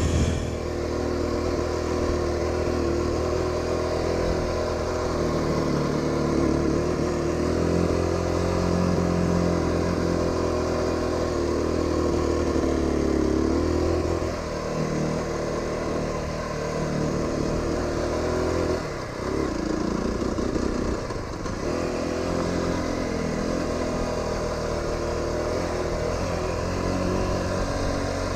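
Aprilia RX125 motorcycle engine running on the move. Its note holds steady, then drops and wavers about halfway through and again a little later as the throttle eases, before settling back to a steady run.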